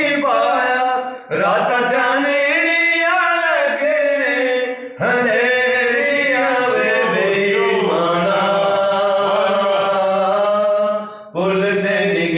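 Two men singing a Punjabi folk song unaccompanied, in long drawn-out, wavering phrases, with brief breaths between phrases about a second, five seconds and eleven seconds in.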